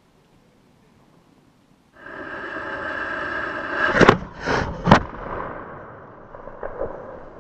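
A 3-inch firework shell's fuse hisses steadily for about two seconds, then the mortar fires with a loud bang, followed within a second by two more reports. A fading hiss with a few small pops follows.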